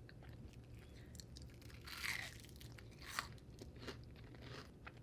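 A person chewing food close to the microphone: wet mouth clicks and smacks, with a louder burst of chewing about two seconds in and a sharp click about three seconds in.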